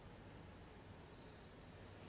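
Near silence: steady room tone with a faint hiss and low hum.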